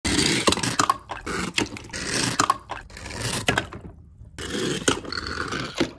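Die-cast toy cars rolling and scraping down a ramp of ribbed plastic drinking straws: a rattling scrape with sharp clicks, in several bursts, cut by a brief silence about four seconds in.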